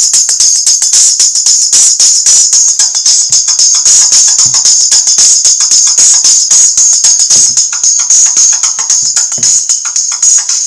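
Music with a fast, tambourine-like percussive beat playing from a smartphone's small speaker through a silicone funnel amplifier; the sound is thin and treble-heavy, with almost no bass.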